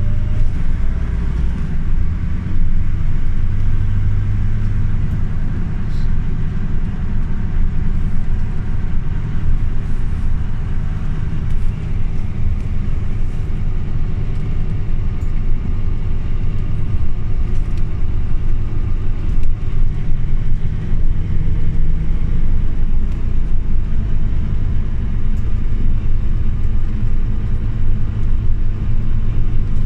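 Scania OmniLink CK270UB city bus running, heard from inside the passenger cabin: a steady, loud low rumble of engine and road noise with a faint whine over it.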